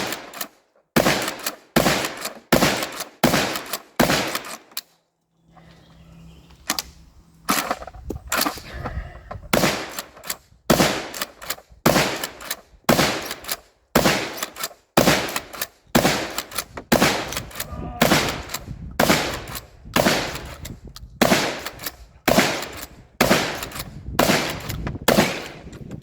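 Rapid fire from a 12-gauge pump-action shotgun (Axor Arms FMP), its assisted pump worked between shots: a string of loud shotgun blasts about one every two-thirds of a second, with a short break about five seconds in, as a 30-round drum magazine is emptied.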